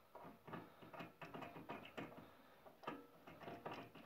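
Faint, irregular clicks and light taps of a white plastic locking knob being turned on the table bracket of a Ryobi RBDS4601G belt and disc sander while its metal table is held in place; the sander is not running.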